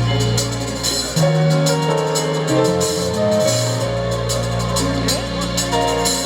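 Live band music with no vocals: held bass notes changing every second or two under sustained chords, with a drum kit ticking on cymbals, played during a stage sound check.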